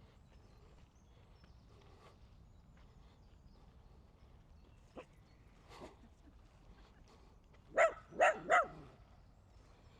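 A dog barking aggressively, three loud barks in quick succession near the end, after a quieter stretch.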